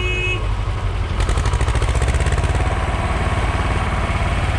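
A farm tractor's diesel engine idling steadily, with an even, regular beat of firing pulses.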